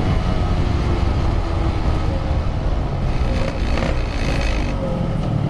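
Yamaha RX-King's 135 cc two-stroke single running at a fairly steady pitch while riding, through a Packing Power aftermarket exhaust.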